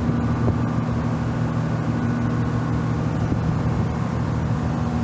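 Car ferry's engines running with a steady low drone and hum, heard on board.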